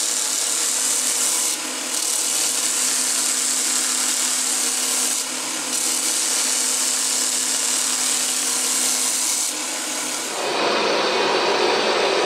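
Belt grinder running as a steel knife blade is ground against the abrasive belt, a steady high hiss over the motor's hum, broken twice when the blade is briefly lifted off. At about ten and a half seconds this gives way to the steady rushing noise of a forge burner.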